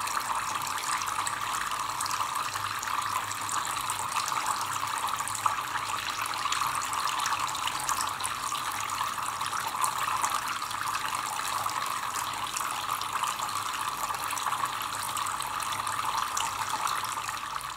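Liquid splashing and trickling steadily as it cascades down a tiered drinks fountain, spilling over the rims of its bowls into the basin below.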